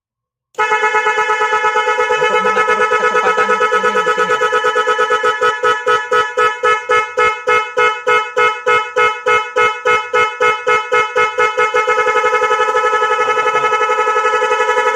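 A pair of OKD 12-volt snail electric horns sounding together through a pulsing relay module, giving loud rapid on-off honks in the style of an Indonesian night-bus horn. The pulses start fast, slow down through the middle and speed up again near the end, then stop abruptly.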